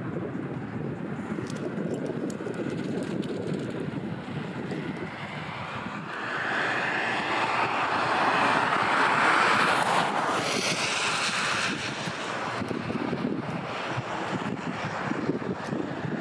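Wind buffeting the microphone in a low rumble, with a louder rushing sound that swells about six seconds in and dies away about twelve seconds in.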